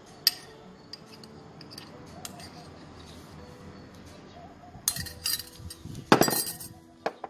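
Metal spoon clinking and scraping against a small ceramic bowl as paste is tapped off it, with a few sharp clicks. About six seconds in comes the loudest sound, a brief scraping clatter as the bowl with the spoon in it is set down on the table, then one more click.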